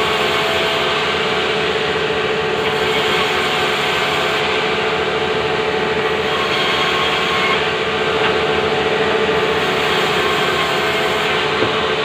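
Sawmill band saw running with a steady hum while its blade cuts through a log that is being pushed through by hand. There are a couple of light knocks of wood near the end.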